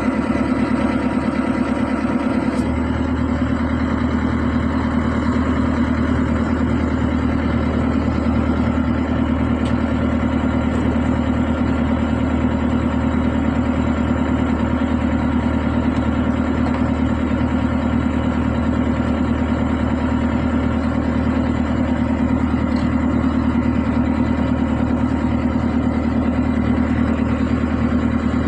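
An engine idling steadily, its low hum shifting slightly about two and a half seconds in.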